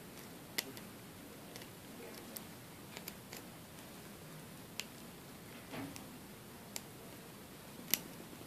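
Faint, scattered clicks of small steel surgical instruments being handled at the toe, about eight in all at irregular spacing, the sharpest one near the end.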